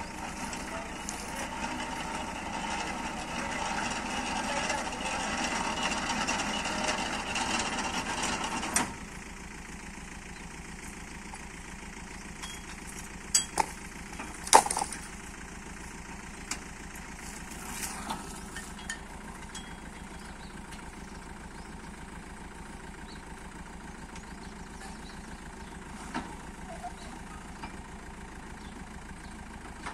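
Borewell rig's engine running under load as it hauls up the pump's pipe column, then dropping suddenly to a steady idle about nine seconds in. A few sharp knocks of pipe handling follow, two close together a little after the middle.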